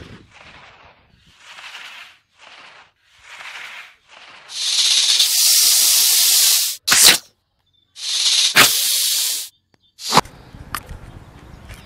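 Cobra hissing sound effect: a string of short soft hisses, then a long loud hiss, a sharp crack, and a second long loud hiss, with two clicks near the end.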